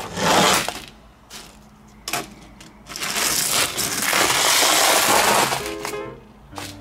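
Small gravel stones crunching and rattling for about three seconds in the middle, as a hand digs a small plastic toy plane out of them. Before that comes a short scrape as the toy runs down a wooden slide, then a few sharp clicks as it lands among the stones.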